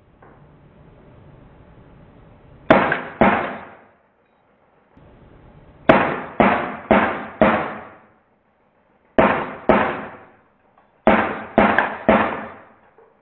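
Drozd Blackbird CO2 BB gun firing in short bursts: two shots, then four, then two, then three, about half a second apart, each ringing out briefly.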